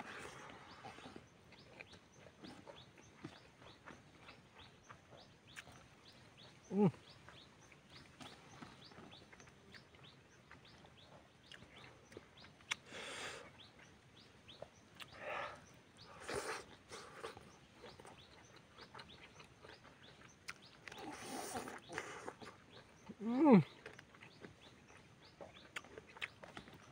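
Close-up eating sounds of someone eating rice and chicken by hand: soft wet chewing, lip-smacking and small clicks. Twice a short animal call that slides down in pitch cuts in, the second one near the end and the loudest sound.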